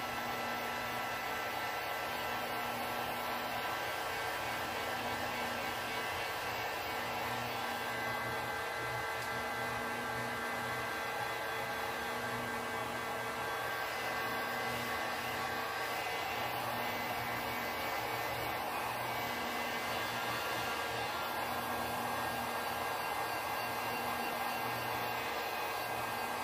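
Electric heat gun running steadily, blowing hot air onto a vinyl seat cover to shrink out the wrinkles: an even rush of air with a steady motor whine.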